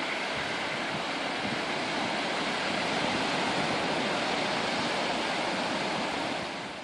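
Sea surf washing and breaking on a rocky shore, a steady rush of noise that fades out near the end.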